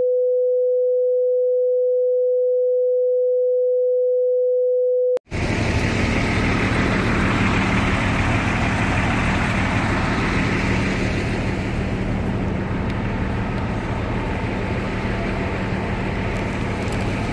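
A steady electronic beep tone at one pitch for about five seconds, cut off abruptly. Then the steady noise of a bus terminal with bus engines running.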